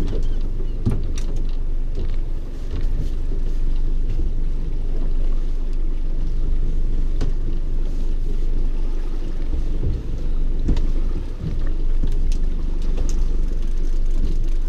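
Steady wind rumble buffeting the microphone aboard a small boat, with a few scattered light clicks and knocks.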